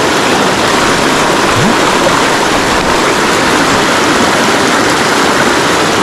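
Steady rushing of a river running high and fast, swollen with rain.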